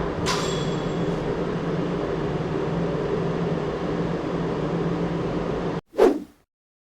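A steady machine-like hum with a hiss, which cuts off abruptly near the end; a brief rushing sound follows, then silence.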